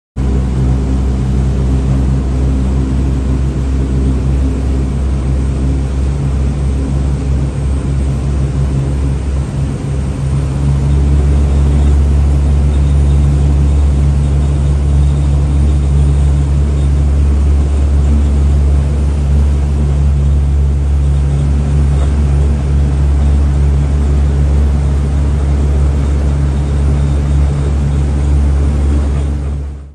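A motorboat engine running at speed, a steady low drone with water and wind noise, getting louder about ten seconds in.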